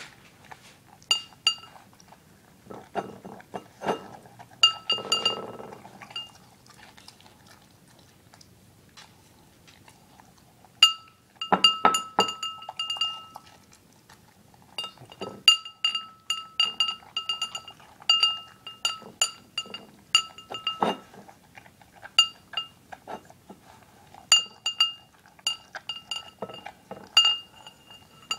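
Ceramic dog bowl clinking and ringing as a dog eats cereal from it, its muzzle knocking the bowl again and again. The clinks come in irregular clusters, with a quiet spell of a few seconds about a third of the way in.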